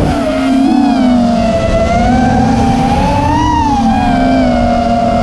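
Brushless motors of a 5-inch FPV racing quadcopter (Hyperlite 2206 2600 kV motors on 4S, spinning DALProp tri-blade props) heard from the onboard camera: a loud whine whose pitch rises and falls with the throttle, climbing briefly about three and a half seconds in.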